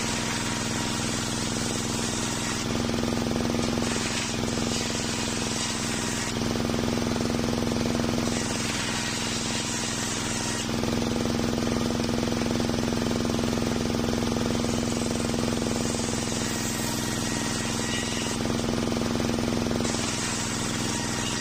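Homemade circular saw bench running steadily with a constant hum, its blade ripping old waru wood into boards. The high-pitched cutting noise rises about five times as planks are fed through, each cut lasting two to three seconds, and drops back to the running drone between cuts.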